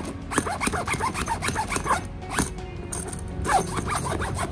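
A YKK brass-plated zipper on a fabric fishing-rod bag being pulled open and closed in several quick rasping strokes, with another pull near the end.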